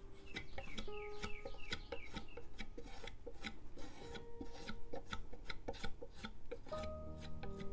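Metal palette knife scraping across a birch wood panel in quick, repeated short strokes, spreading a thick layer of matte gel medium.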